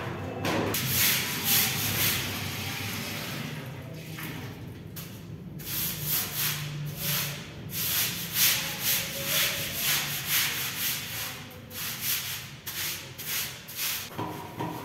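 Stiff-bristled broom scrubbing a wet tiled floor, a steady rasping at first, then back-and-forth strokes about twice a second.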